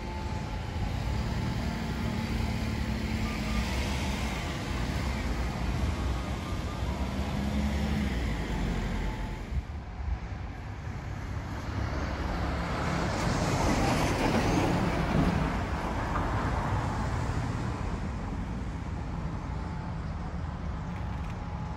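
Road traffic: a steady rumble of cars and trucks, with one vehicle passing close and loudest about two-thirds of the way through.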